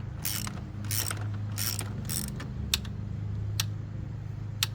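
Hand ratchet clicking as a frame slider bolt is tightened on a motorcycle: four short bursts of ratcheting strokes in the first couple of seconds, then a few single clicks, over a steady low hum.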